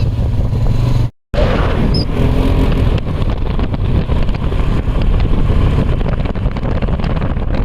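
Steady running of a motor vehicle with wind noise on the microphone. The sound cuts out for a moment about a second in.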